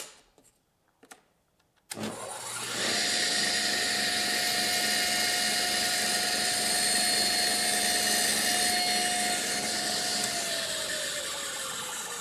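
Table saw switched on with a click about two seconds in, the motor and blade spinning up to a steady whine while crosscutting a board. Near the end the saw is switched off and the whine falls steadily in pitch as the blade coasts down.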